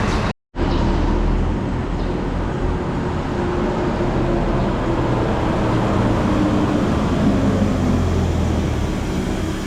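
Bus engine running, a steady low rumble mixed with traffic noise. The sound drops out completely for a moment about half a second in.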